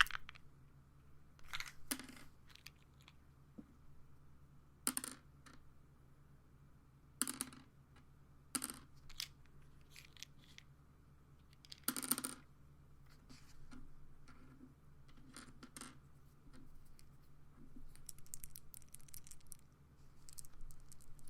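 Pills rattling and clicking in a pill bottle: several separate short rattles, then a run of quicker, lighter clicks near the end.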